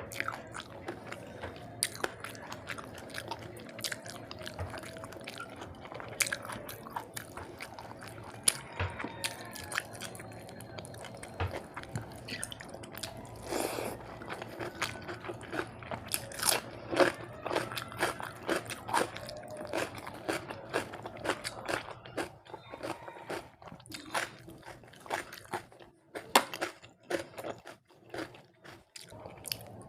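Close-miked eating sounds of a rice and fish curry meal: steady chewing with irregular crunchy bites and sharp mouth clicks.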